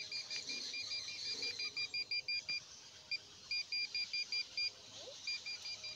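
Handheld satellite finder meter beeping rapidly, about eight short high beeps a second, as it picks up a satellite signal while the mesh dish is aligned. The beeping breaks off twice and resumes.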